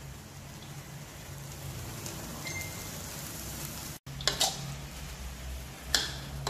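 Pad thai noodles sizzling steadily in a hot wok as they are stir-fried. In the last couple of seconds a metal spatula scrapes and knocks against the wok a few times.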